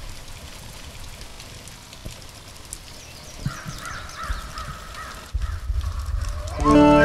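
Nature ambience of steady rain-like hiss, with a bird calling for a second or two midway. A low rumble comes in past the middle, and music with held notes swells in near the end.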